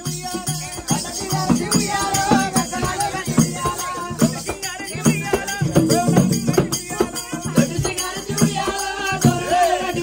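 Oggu Katha folk music: drums beating a quick, steady rhythm with jingling ankle bells, and voices singing over it.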